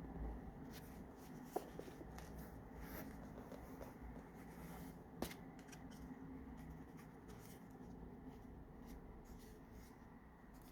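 Faint rustling and handling of paper as the pages of a handmade junk journal are turned, with two sharp taps, one about a second and a half in and one about five seconds in.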